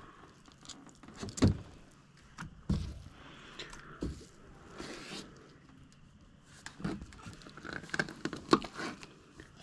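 Fillet knife cutting and skinning fish fillets on a plastic board: scattered scrapes and light knocks of the blade and of the fish being handled, thickest near the end.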